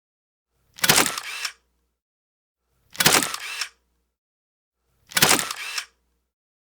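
Camera shutter fired three times, about two seconds apart. Each firing is a sharp click followed by a second click a little under a second later.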